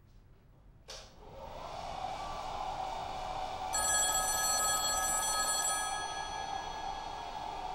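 Telephone ringing steadily, with a click just before it starts and a set of clear high ringing tones sounding over it for about two seconds in the middle.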